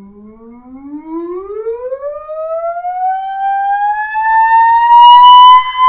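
A woman's singing voice doing a slow, unbroken upward slide, a vocal siren, from low chest voice through belt and mix into head voice. It climbs more than two octaves, grows louder as it rises, and levels off on a high held note near the end.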